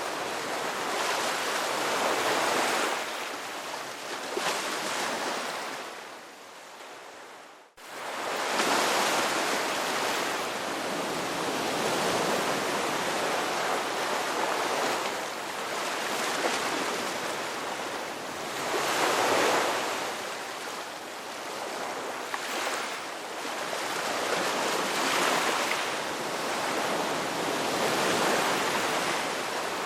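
Sea waves breaking and washing ashore, the surf swelling and ebbing every few seconds. The sound fades and cuts out for an instant about eight seconds in, then picks up again.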